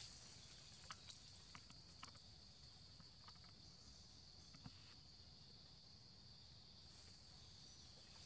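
Faint, steady high-pitched drone of an insect chorus in the forest canopy, with a few light clicks in the first few seconds.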